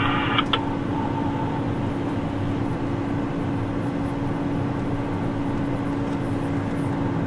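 Steady drone of a tractor's engine and cab fan heard from inside the closed cab, with a constant low hum. A short click about half a second in.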